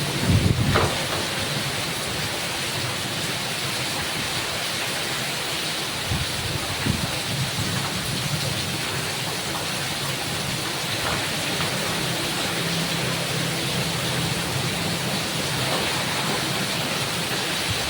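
Heavy rain falling steadily, with a few brief low rumbles in the first second and again about seven seconds in.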